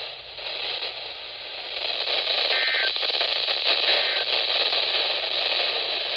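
Steady static hiss from a weather radio receiver tuned to a weak, patchy NOAA Weather Radio signal, with a couple of brief faint tones breaking through in the middle.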